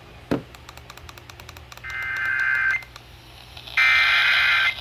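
Emergency Alert System SAME header data bursts over NOAA Weather Radio: two loud bursts of electronic data tones, about a second each and a second apart, opening a severe thunderstorm warning. A click and a quick run of ticks come just before the first burst.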